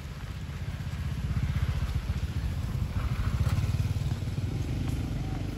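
A motor vehicle engine running: a low, pulsing rumble that grows louder over the first second and a half and is loudest about three and a half seconds in.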